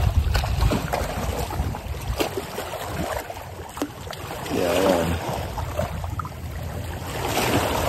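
Small waves lapping and splashing against shoreline rocks, with wind rumbling on the microphone. A short murmur of a man's voice comes about five seconds in.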